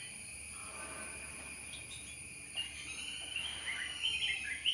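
Steady high-pitched drone of insects, cricket-like, with short chirps of small birds coming in about halfway through and clustering toward the end.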